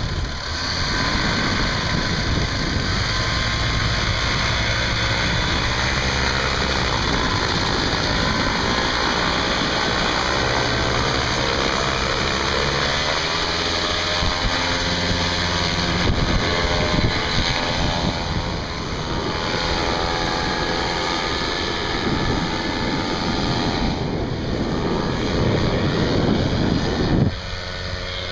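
Paramotor engine and propeller running, the pitch rising and falling with the throttle, mixed with wind rushing over the microphone. About a second before the end the sound drops suddenly to a quieter, steadier engine tone.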